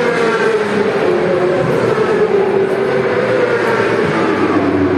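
Racing motorcycle engine running at high, fairly steady revs, its pitch wavering slightly up and down.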